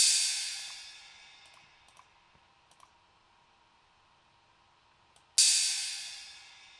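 Drum-machine crash cymbal sample struck on its own and fading out over about a second and a half, struck again about five seconds later and fading the same way. A few faint clicks in the quiet between.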